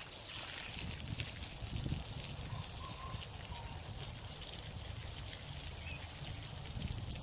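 Water spraying steadily onto dirt, a continuous hiss and patter, as the ground is soaked to make a mud wallow.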